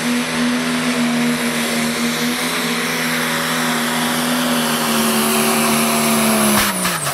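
Pulling tractor's diesel engine running flat out under load as it drags the weight-transfer sled, its pitch sagging slowly as the load builds. About six and a half seconds in, the pitch falls sharply as the pull comes to an end, with a few sharp clicks.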